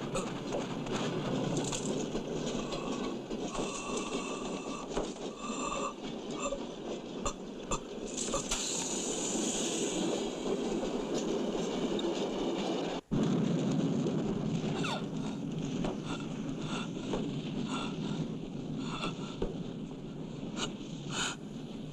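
Film soundtrack of a train running: a steady rumble and clatter with scattered sharp clicks. It breaks off sharply about thirteen seconds in, as at an edit, and then goes on.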